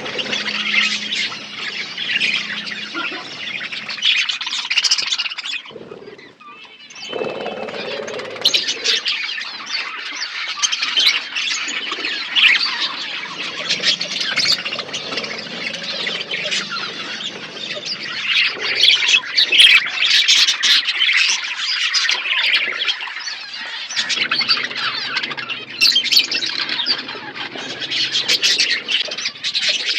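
A flock of budgerigars chirping and chattering continuously, many birds calling over one another, with a short lull about six seconds in.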